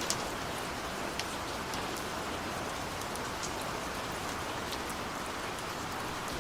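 Steady rain falling: an even hiss with scattered single drops ticking through it.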